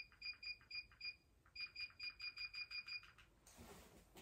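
Short, high electronic beeps in quick succession, about five a second, in two runs with a brief pause about a second in. A faint hiss begins near the end.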